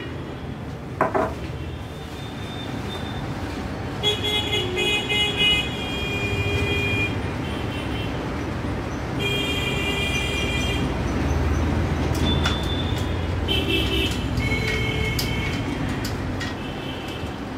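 Street traffic rumbling, with several horn toots held for a second or two, and a sharp click about a second in.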